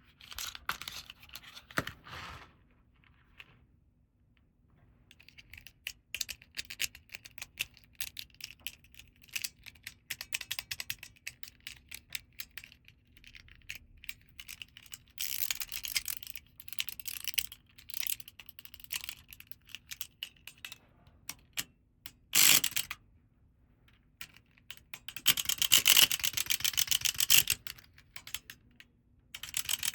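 Small plastic toys and packaging being handled and unboxed: clusters of quick clicks, taps and rustles, with denser runs of rapid clicking around the middle and near the end, and one sharp knock about three-quarters of the way through.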